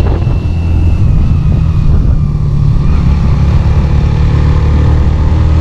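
Motorcycle engine running at a steady cruise on the open road, with wind noise over the microphone.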